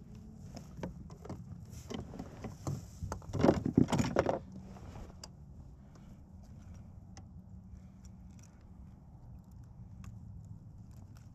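Scattered clicks, then a burst of rattling and knocking about three and a half seconds in, lasting about a second, as a pike is handled aboard a fishing kayak.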